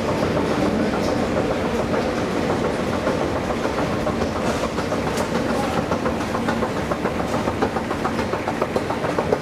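Escalator running, a steady mechanical hum dense with rapid clicking from the moving steps. The clicks grow sharper near the end as the steps run into the landing.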